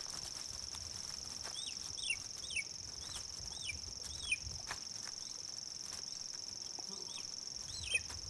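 Marsh ambience: a steady, high-pitched insect drone, like a cricket or bush-cricket. Over it, a bird gives a series of short calls that slide downward, about two a second, starting about one and a half seconds in and again near the end.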